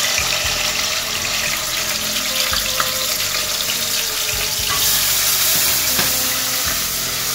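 Wet ground red-chilli masala paste sizzling as it goes into hot oil with curry leaves in a steel pot and is stirred with a wooden spatula: the oil spitting as the water in the paste boils off. The sizzle grows louder about five seconds in.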